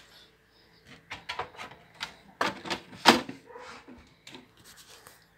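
Sheet-metal top cover of a cassette deck being put back on: a series of irregular clicks, knocks and brief scrapes of metal, the loudest knock about three seconds in.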